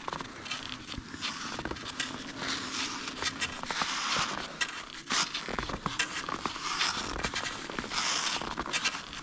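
Cross-country skis sliding and scraping over snow, a hiss that swells and fades about once a second with small crackles.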